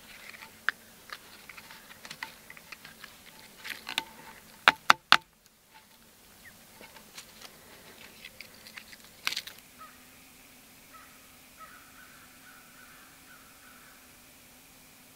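Hands working paracord and a folding pocketknife: small rustles and clicks, with three sharp clicks in quick succession about five seconds in and another just after nine seconds. The second half is quieter.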